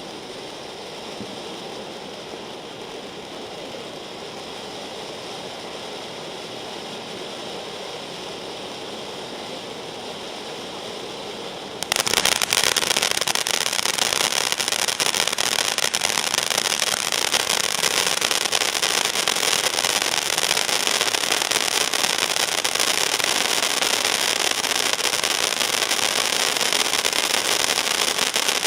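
9-inch conic firework fountain spraying sparks with a steady hiss. About twelve seconds in it jumps suddenly to a much louder, brighter hiss with fine crackling, which holds steady.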